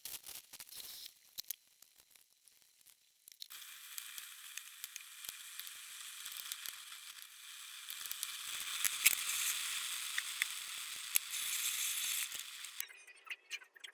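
Food frying in hot oil in a pan: a few light clicks, then steady sizzling that starts about three and a half seconds in, grows louder around the middle and cuts off shortly before the end.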